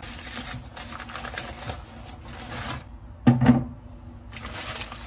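Keys typed on a keyboard in quick runs of clicks. A short, louder low thump breaks in a little over three seconds in.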